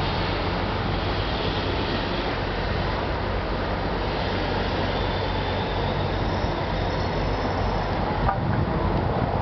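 Steady city traffic and engine noise, with a constant low drone. A faint knock comes near the end.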